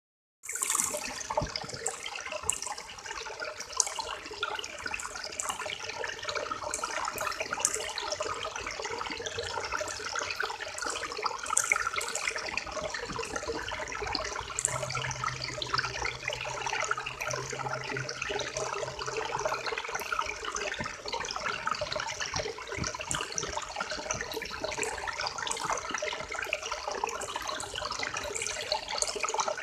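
River water flowing steadily, with many small splashes running through it.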